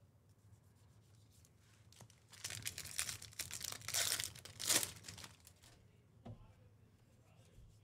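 A trading-card pack's foil wrapper crinkling and tearing as it is ripped open and handled. It lasts about three seconds, starting about two seconds in, and is loudest near the middle.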